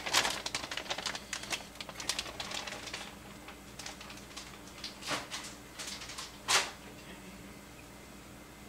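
Small clicks and rattles from bagged precooked chicken cubes being tipped into a frying pan. They are dense at first and thin out over the first three seconds, then come three separate sharper clicks.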